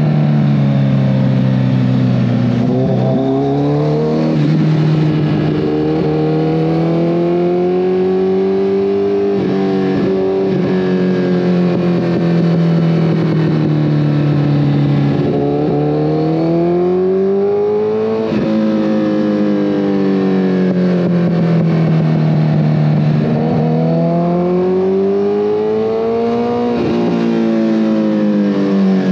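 2014 Kawasaki ZX-14R's inline-four engine running through a full Brocks Alien Head 2 exhaust, heard from the rider's seat. The engine note climbs under throttle several times and falls back, with sudden drops in pitch about two thirds of the way in and again near the end.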